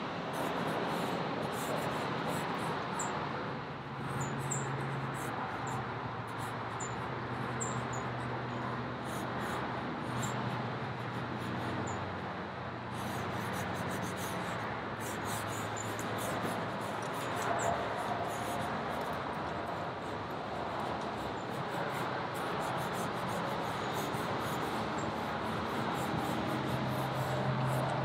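Steady outdoor background noise with a low hum that comes and goes. Faint high chirps sound through the first half, and light scratchy ticks are scattered throughout.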